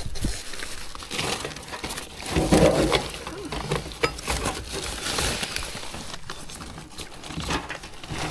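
Plastic bags and paper rubbish crinkling and rustling as gloved hands dig through a bin, with scattered small knocks and clicks; loudest about two and a half seconds in.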